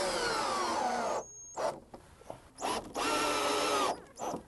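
Cordless drill/driver driving screws through a hanger strap into a wooden floor joist, in two runs. The first slows and drops in pitch as the screw seats, ending about a second in. The second is a shorter, steady run about three seconds in.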